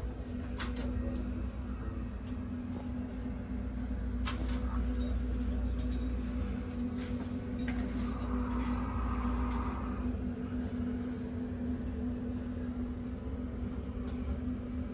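Steady low hum and rumble of shop room tone, with a few faint clicks and knocks scattered through it.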